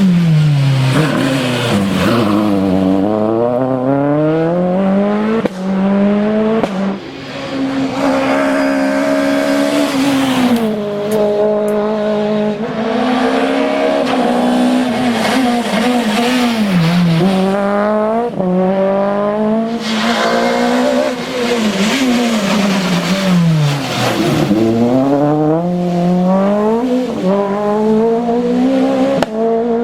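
Citroën C2 rally car engine revving hard on a stage, its pitch repeatedly dropping sharply and then climbing again as the car brakes and accelerates through the gears.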